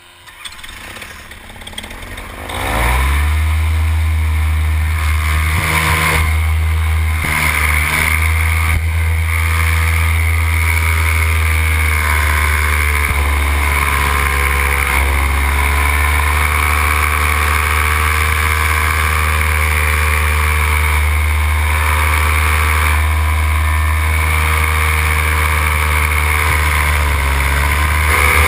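Paramotor engine and propeller throttled up over the first three seconds, then held at steady full power for the takeoff run, with a slight dip in pitch near the end.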